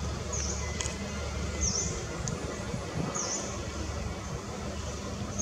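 Outdoor forest ambience with a bird repeating a short, high, dipping chirp about every second and a half, over a steady low rumble.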